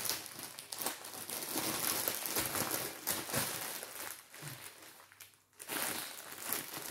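Packaging crinkling and rustling in irregular bursts with small clicks as items are handled and packed back into a storage box, pausing briefly about five seconds in.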